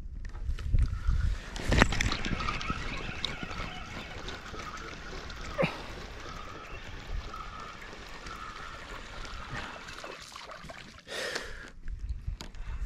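Water splashing and trickling close by, busiest about two seconds in, with one sharp click around the middle.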